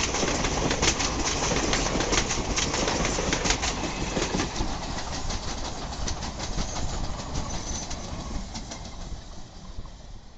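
Passenger train coaches rolling past at speed, wheels clattering over the rail joints; the sound fades steadily over the last few seconds as the train draws away.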